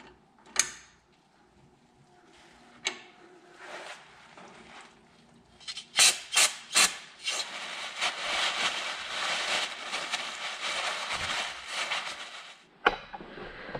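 Aerosol brake cleaner sprayed through its straw onto a rear brake caliper: three short bursts about six seconds in, then one long steady hiss of about five seconds that stops abruptly near the end. A few faint tool clicks come before the spraying.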